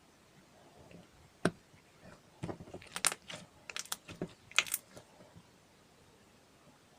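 Slime being handled, giving one sharp click about a second and a half in and then a quick run of clicks and crackling pops, which stop about five seconds in.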